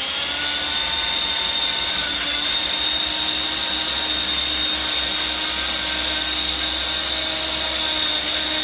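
Electric powder grinder running at full speed: a steady high-pitched motor whine over a hiss of grinding noise.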